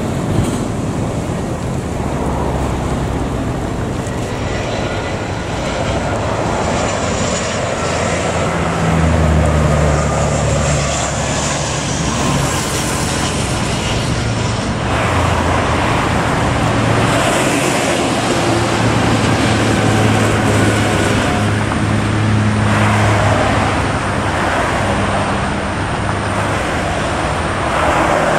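Airbus A320 corporate jet's CFM56 engines running on final approach to land: a steady jet rumble with a faint high whine, mixed with road traffic passing close by.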